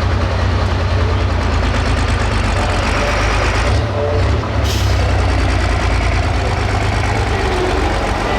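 Heavy diesel pulling-tractor engine running loud and steady, with a deep hum and a brief dip in level about four seconds in.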